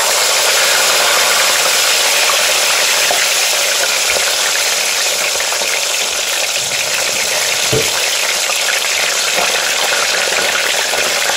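Whole tilapia frying in hot oil in a frying pan: a loud, steady sizzle.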